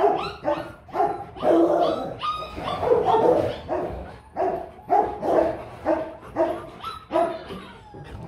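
Dog barking repeatedly, about two barks a second, with a few longer drawn-out barks in between.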